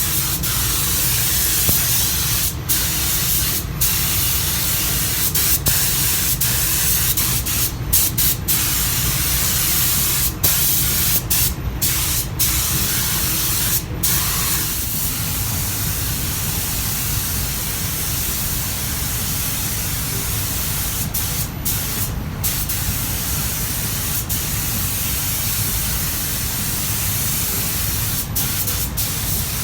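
Compressed-air spray gun hissing steadily as it sprays. The hiss breaks off for a moment a dozen or so times.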